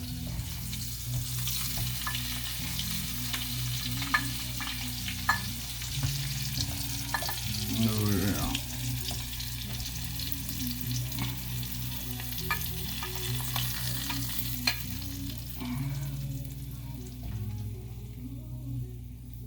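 Food sizzling steadily in a hot frying pan, with sharp clicks and a scrape of a utensil against the pan now and then.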